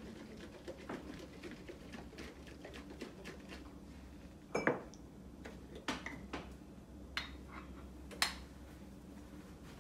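Kitchen clatter of plastic feeding bottles, lids and dishes being handled and set down on a countertop and at the sink, with scattered small clicks. The loudest clack comes a little past four and a half seconds, with a few sharper knocks over the next four seconds.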